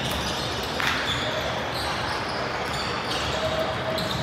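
Basketball bouncing on a hardwood gym floor in a large indoor hall, over a steady background of voices and gym noise.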